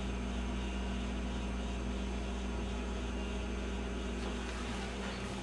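Steady low hum under a constant hiss, with no distinct events: room tone.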